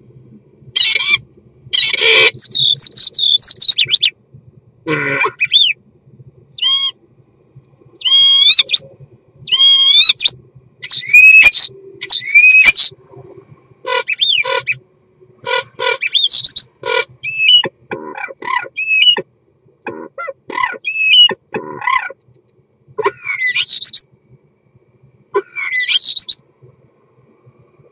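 Male common starling singing its courtship song at close range inside a wooden nest box: a run of short phrases of gliding whistles, rattles and clicks, separated by brief pauses.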